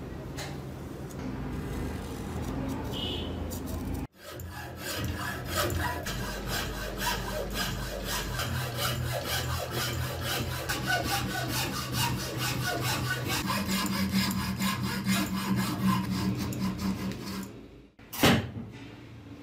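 Hacksaw cutting through a weathered wooden block held in a bench vise: steady, rapid back-and-forth strokes that start a few seconds in. The sawing stops shortly before a single sharp knock near the end.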